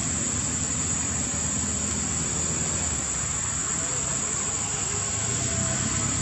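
Steady outdoor background drone: a low rumble under a constant high-pitched hiss, with no distinct events.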